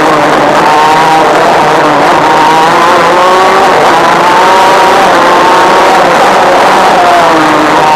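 Honda two-stroke shifter kart engine heard onboard under hard acceleration, its pitch climbing, dipping briefly about two seconds in and falling again near the end as the revs drop.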